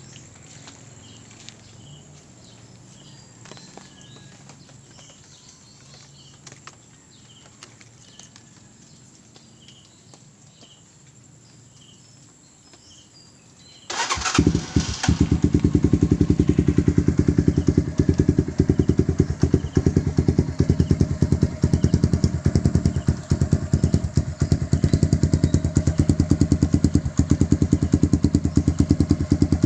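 Faint background for about fourteen seconds, then a Euro Flash 150 motorcycle engine starts suddenly and settles into a steady idle. It idles through an aftermarket SC exhaust pipe with a loud, fast pulsing beat.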